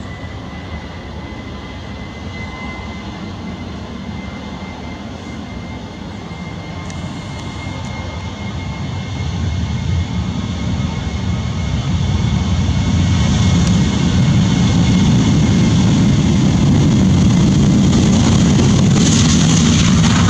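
Jet engines of a Boeing 737-800 (CFM56-7B) running as the airliner rolls along the ground, with a faint steady whine early on; the engine noise grows steadily louder through the second half as the aircraft comes closer.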